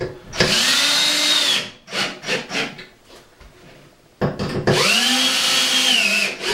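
Cordless drill driving coarse-thread screws through a wooden rack board into wall anchors. There are two long runs, each with a motor whine that rises, holds and falls as the screw drives home. Between the runs come a few short trigger blips.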